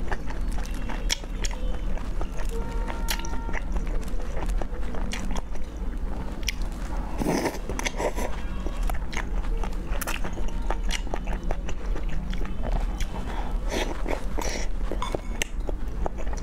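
A person chewing and biting soft food from a spicy noodle soup, close-miked, with many wet mouth clicks. A louder slurp comes about seven seconds in.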